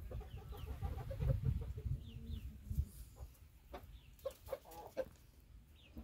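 A flock of free-range hens and roosters clucking, with many short, repeated clucks, over a low rumbling noise in the first half.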